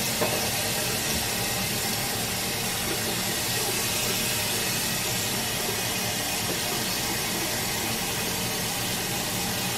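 Water running steadily from a Moen single-handle bathroom faucet, the stream pouring into the sink basin with an even hiss.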